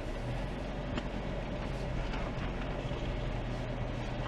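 A 4x4's engine idling steadily, a low even hum, with a light click about a second in.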